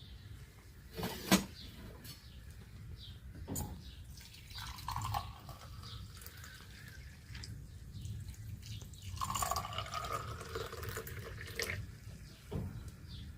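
Water dripping and trickling, with a sharp knock a little over a second in and a second, softer knock a couple of seconds later.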